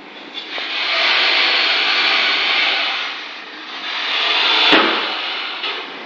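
Harsh grinding from a badly worn front wheel bearing on a GMC Safari van, rising and falling in surges, with one sharp click about four and a half seconds in.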